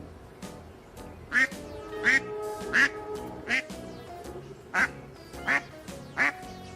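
A duck quacking seven times, in a run of four and then three about two-thirds of a second apart, over background music.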